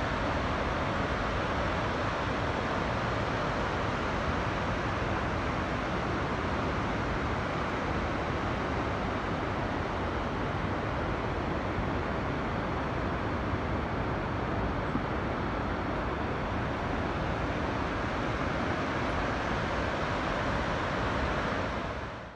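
Steady rush of water pouring over a river waterfall, an even noise without breaks that fades out quickly near the end.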